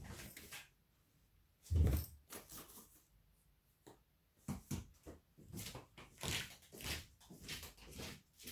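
Irregular handling noises: rustling, light clicks and knocks of packaging and a phone being handled, with the loudest a dull thump about two seconds in.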